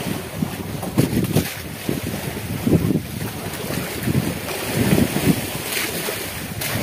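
Wind buffeting the microphone in uneven gusts over the wash of open-sea waves around a small wooden outrigger boat.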